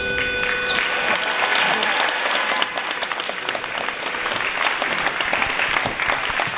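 Audience applauding, many hands clapping, as the last steel pan chord dies away in the first second.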